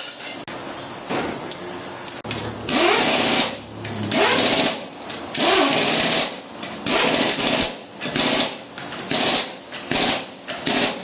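Pneumatic impact wrench tightening wheel lug nuts in a run of about ten short bursts, each rattling and changing pitch as it spins up and hammers.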